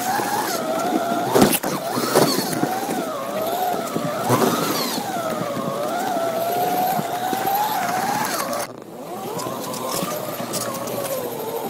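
Electric motor of a slot car whining as it laps the track, its pitch rising and falling as the car speeds up and slows through the corners. There are a few sharp knocks, the loudest about a second and a half in, and a short drop near the end.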